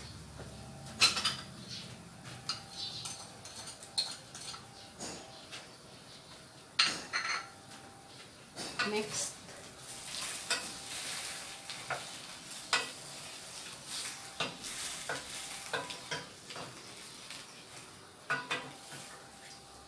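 Shrimp sizzling softly in a stainless steel pot as a wooden spatula stirs and scrapes them, with a dozen or so sharp knocks of the spatula against the pot.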